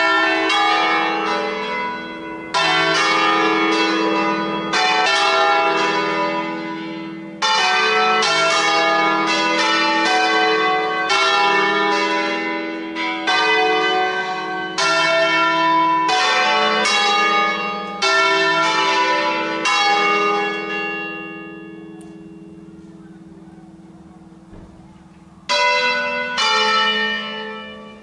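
A ring of five swinging bronze church bells, tuned with E3 as the largest bell, rung in a solemn concert. The bells are swung by electric motors under hand control. Strokes come in quick runs with short pauses between them. About twenty seconds in the strokes stop and the bells ring out and fade, and a new run of strokes starts near the end.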